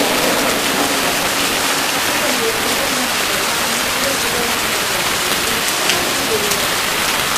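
Heavy rain pouring steadily onto a street and trees, a dense, even hiss.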